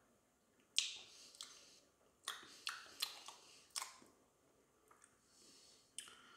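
A run of sharp, wet lip smacks and tongue clicks, about eight, as a mouthful of fruit lambic beer is tasted.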